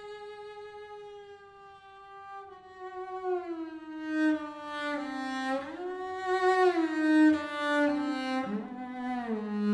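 Slow solo bowed string music: one long held note, then a melody that steps and slides downward in pitch, growing louder toward the end.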